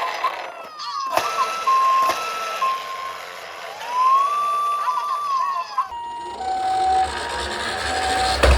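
Electronic siren sounds from toy minicar emergency vehicles. First a two-tone siren alternates high and low, each note about half a second, then a wail rises, holds and falls. About six seconds in the sound switches to a lower, broken tone over a low rumble, with a thump near the end.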